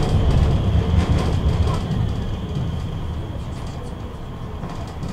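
Tram running on its rails, heard on board: a low rumble that fades over the first two seconds, with a steady high whine throughout.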